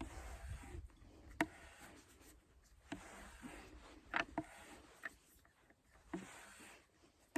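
Sharp metal clicks and clinks of a wrench's box end working a screw-in anchor, coming irregularly a few times, with a pair close together about four seconds in.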